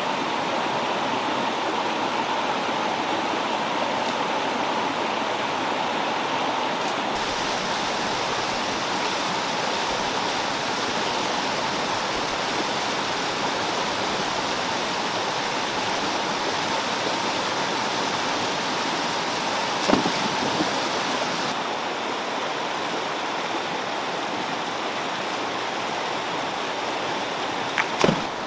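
Fast-flowing stream rushing and splashing over rocks and a low weir, a steady water noise. Two brief sharp knocks stand out, one about two-thirds of the way through and one near the end.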